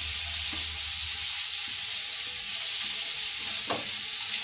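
Hog plum (amra) pieces sizzling steadily in hot mustard oil in a metal kadai, seasoned with salt and turmeric, as they fry. A metal spatula scrapes the pan briefly a couple of times.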